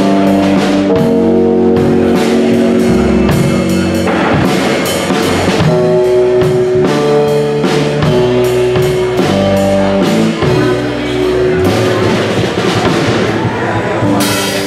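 A live band playing during a sound check: guitar, drum kit and bass, with held notes shifting from chord to chord.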